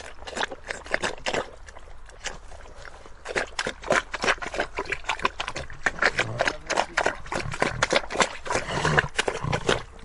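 A pig eating: wet chewing, smacking and slurping in quick, irregular bursts, with a few low grunts in the second half.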